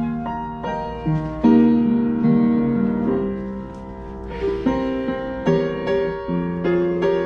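Slow, soft piano-voiced music played on an electronic keyboard console: chords and melody notes struck one after another, each fading after it sounds.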